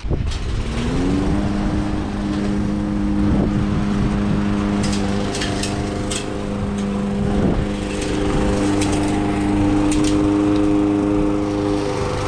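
Lawn mower engine starting up, its pitch rising over about a second, then running at a steady speed.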